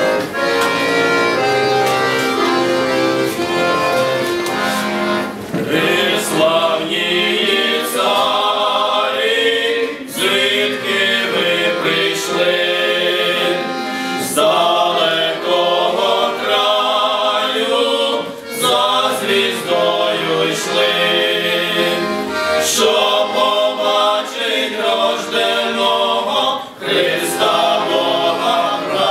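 Male voices singing a Ukrainian Christmas carol in unison phrases, accompanied by a piano accordion, with short breaks between phrases.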